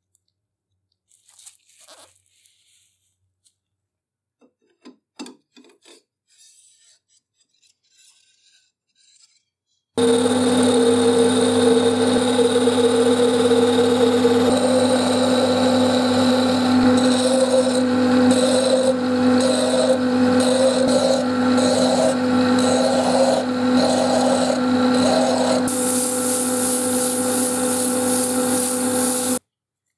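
Faint clicks of small parts being handled, then a workshop power tool starts abruptly and runs steadily with a hum. For a while a regular stroke about once a second rides on it, and near the end a brighter hiss joins it before it stops.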